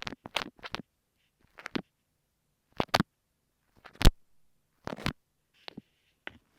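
Kinetic sand slime squished and pressed against an earphone microphone, making short, close-up crackly crunches in separate presses about a second apart. The loudest press comes about four seconds in.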